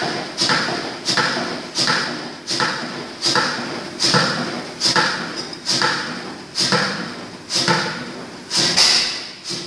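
Crossley OE1 single-cylinder horizontal oil engine running slowly, with a sharp, even beat a little more than once a second. Each beat fades away before the next.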